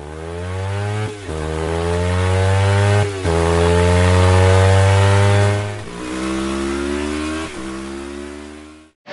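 Motorcycle engine accelerating up through the gears: its pitch climbs steadily and drops sharply at each of about four gear changes, over a rush of wind noise. It fades in at the start and fades out near the end.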